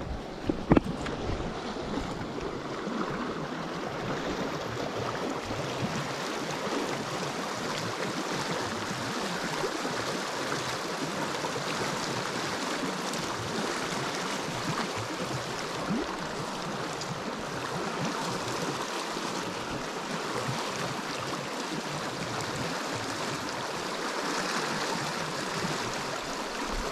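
Small creek water running over rocks, a steady rushing. There is one brief knock about a second in.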